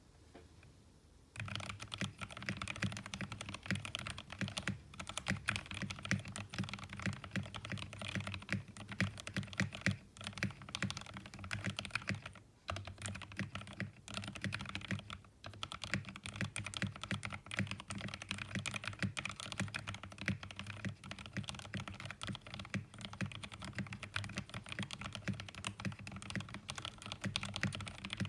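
Continuous fast typing on a Pressplay Apollo 61 v2 mechanical keyboard with lubed Gateron Yellow linear switches, keys clacking in a dense stream that starts about a second and a half in, with a few short pauses.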